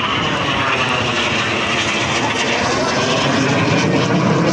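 Jet engines of the Suryakiran team's BAE Hawk trainers as the aircraft fly the display: a steady, loud noise.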